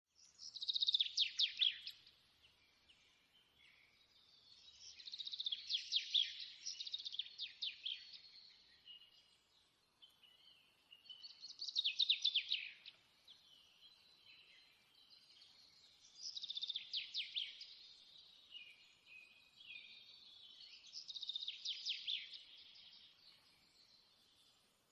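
A songbird singing in about five phrases of rapid, high trills and chirps, with short pauses between them.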